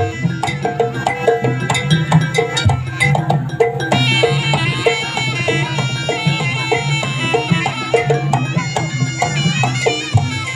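Jaranan ensemble music: kendang drums and gong-chime strokes keep a steady beat under the reedy, wailing melody of a slompret shawm.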